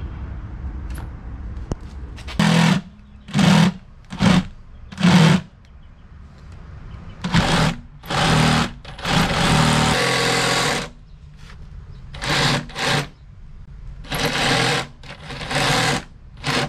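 Small cordless power saw cutting a sink opening in plywood, run in about a dozen short bursts from about two seconds in, the motor whining up and biting into the wood each time.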